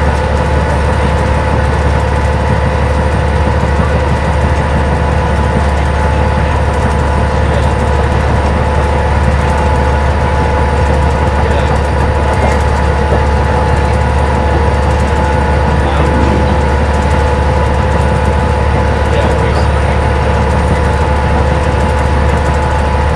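Cabin of a 1992 Stewart & Stevenson Apollo T-40 transit bus cruising at freeway speed: the steady, deep drone of its Detroit Diesel Series 50 engine with road noise and a few held whining tones.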